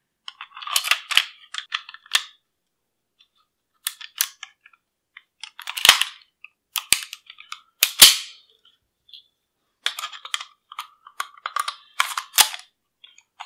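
Steel slide and frame of a Walther P38 pistol being fitted back together by hand: groups of sharp metal clicks and clacks with short quiet gaps between, the loudest clack about eight seconds in.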